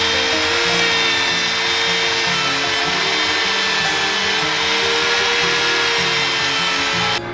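Handheld rotary tool spinning a polishing wheel against a small metal part: a steady motor whine with an abrasive hiss. It cuts off suddenly near the end.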